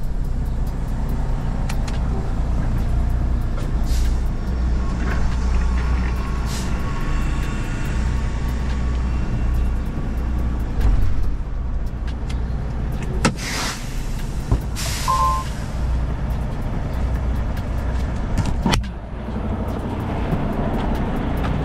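Semi-truck's diesel engine idling, heard inside the cab, with two loud hisses of released air from the air brakes about two-thirds of the way through, followed by a short beep. A sharp click comes near the end.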